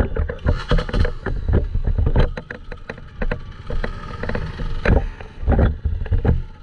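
Dirt bike being ridden over a bumpy track: the engine runs under a heavy low rumble, broken by frequent sharp knocks and rattles.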